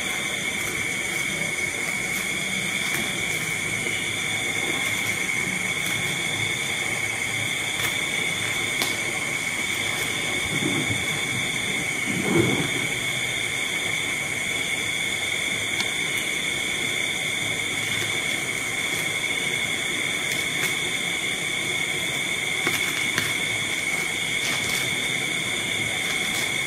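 Steady background hiss with two thin high tones running through it, and one brief low sound about twelve seconds in.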